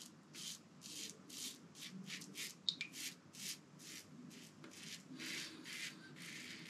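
Merkur 37c slant-bar safety razor scraping through lathered stubble in short, quick strokes, about three a second, during the first shaving pass.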